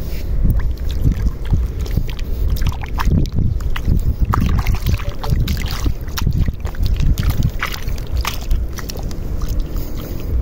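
A hand sloshing and splashing through shallow seawater and mud, groping for shellfish, with many short wet splashes scattered through. Under it runs a steady low rumble of wind on the microphone.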